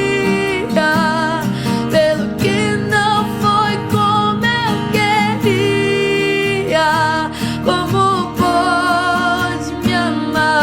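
Christian worship song: a voice singing a slow melody with vibrato over strummed acoustic guitar.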